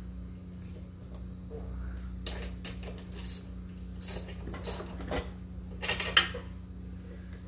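Metal hand tools clinking and tapping on a small engine as a part is put back in: a series of scattered sharp clinks, the loudest about six seconds in, over a steady low hum.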